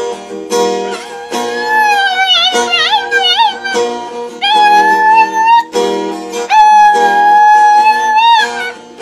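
A dog howling along to a strummed acoustic guitar: high, wavering howls in the first half, then two long held notes, over repeated strummed chords.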